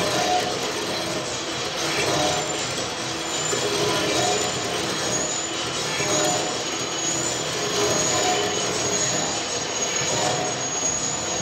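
Heavy-duty lathe turning a large metal workpiece, the cutting tool shearing metal off as it spins: a steady scraping cut with a thin high squeal that comes and goes, and a tone that swells and fades about every second and a half.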